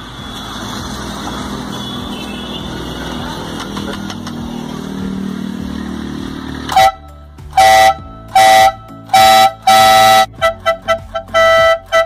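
Twin-trumpet electric compressor air horn on a motorcycle sounding a loud two-tone blast. From about seven seconds in it gives around five separate half-second honks, then a fast run of short toots. Before the horn there is a steady rushing noise.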